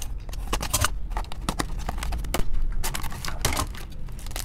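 Cardboard product packaging handled and opened on a table: scattered light taps, knocks and scrapes as the box and its inner tray are moved.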